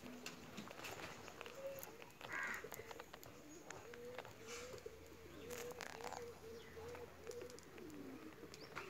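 Faint dove cooing: a string of short, repeated low notes, mostly in the second half, with a few faint high chirps and clicks around it.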